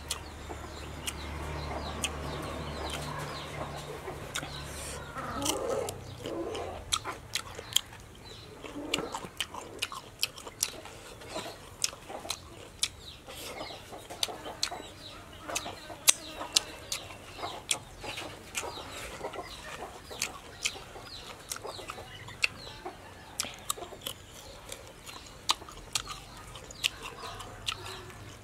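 Close-up chewing and crunching of raw vegetables, with sharp crisp clicks and mouth smacks several times a second. A low hum sounds under it for the first few seconds.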